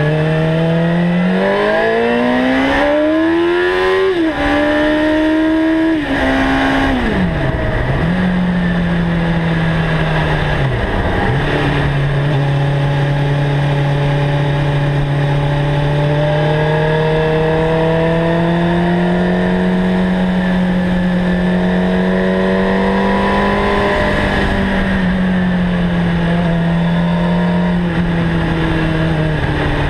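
Suzuki GSX-R 750's inline-four engine through a Mivv GP aftermarket exhaust, heard from on the bike: it revs up hard with an upshift about four seconds in, then the revs fall as the bike slows, with two downshifts. After that it runs at a fairly steady speed, the revs rising and easing gently.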